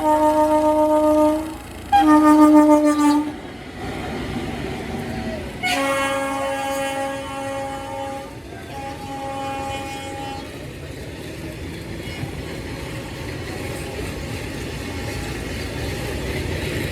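Indian Railways WAG-7 electric freight locomotive's horn sounding four blasts: two short ones in the first three seconds, then two longer ones lower in pitch from about six seconds in. The steady rumble and clatter of the freight wagons rushing past at speed runs underneath.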